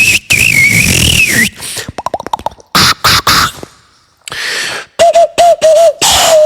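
A beatboxer making a rapid string of vocal sound effects: a wavering whistle-like tone, then a fast run of pitched clicks, sharp noisy bursts, and about four short chirps near the end.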